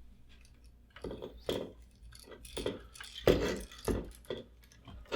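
Irregular clicks, taps and rattles of hand tools and stiff electrical wires being worked in a wall switch box, starting about a second in, with the loudest knocks a little after the middle.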